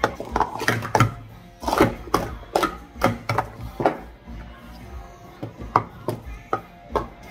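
Hard plastic Speed Stacks cups clacking rapidly and irregularly as they are stacked up into pyramids and slid back down into columns on the mat during a sport-stacking cycle.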